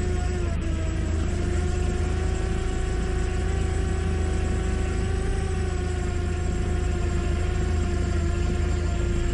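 Quadcopter drone's propellers and motors buzzing steadily in flight, with a steady low rumble underneath; the pitch dips slightly once near the start and again near the end.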